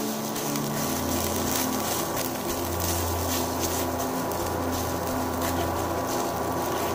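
Khoya (mawa) being stirred and scraped with a silicone spatula as it roasts in a nonstick kadai, with a soft sizzle and a low hum from the induction cooktop that comes in about a second in and dips out briefly a few times.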